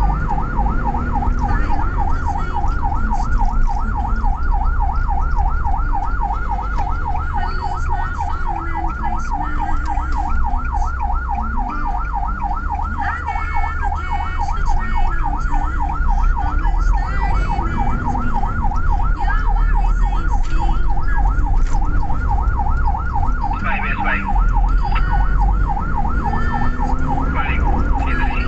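Ambulance's electronic siren on a fast yelp, its pitch rising and falling about four times a second without a break. It is heard from inside the cab over the vehicle's engine and road rumble.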